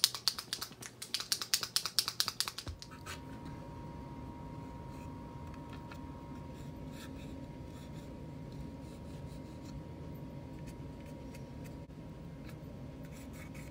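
A liquid chrome paint marker being shaken, its mixing ball rattling in quick, sharp clicks that stop about three seconds in. After that a steady low hum runs under faint scratching of the marker tip on the plastic body.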